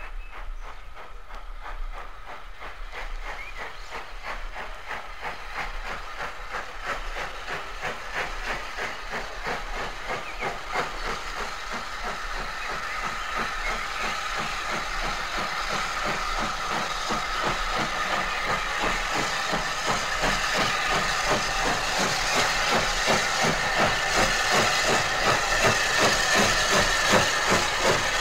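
Southern Railway M7 class 0-4-4T steam tank locomotive working a train of empty coaches up a steep gradient, its exhaust beating in a steady rhythm with the hiss of steam. The beats grow steadily louder as the engine approaches.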